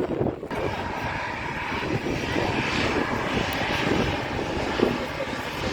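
Jet airliner engines running, a steady loud roar with a low rumble and a hiss that fills in about half a second in.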